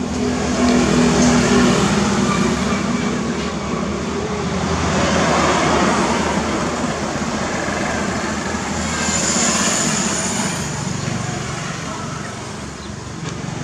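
Motor vehicle engine running steadily, a continuous low hum that swells and eases in loudness.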